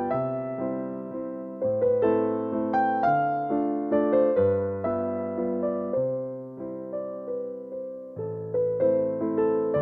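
Background music: a gentle piano piece, its notes struck every half second or so over slow-changing bass notes.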